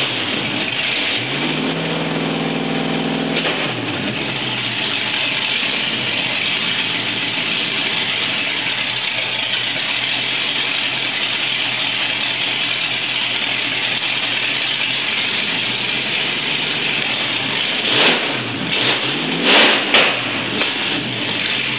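1968 Ford Mustang's 289 small-block V8 running on open Hedman shorty headers with a Comp Cams 268H cam, idling loud and steady. The throttle is held up briefly about two seconds in, and blipped a few times in quick succession near the end.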